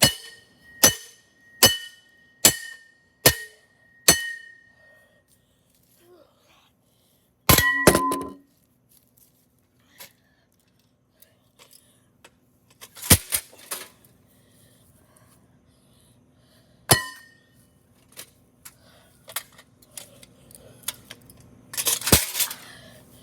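Sledgehammer striking the metal parts of a Harbor Breeze ceiling fan to break it up: six sharp ringing clangs a little over one a second, then a few scattered heavier blows and clatter.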